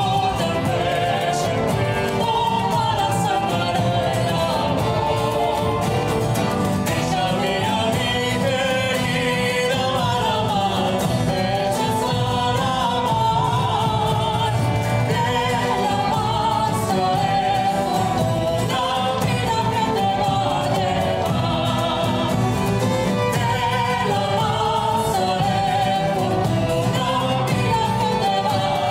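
A woman singing a slow melody with a small early-music ensemble of violins, guitar and hand drums, with low sustained notes underneath.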